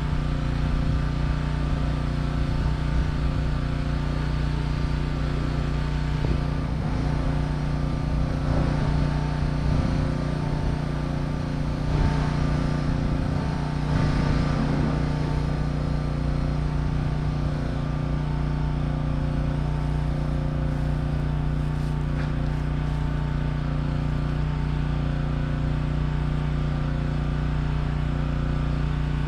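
A steady motor or engine hum runs throughout at an even level, with a strong low drone and fixed overtones.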